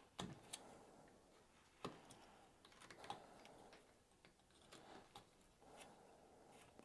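Faint, irregular clicks and short scrapes of a carving knife cutting into a willow staff, taking small chips off with scoop cuts.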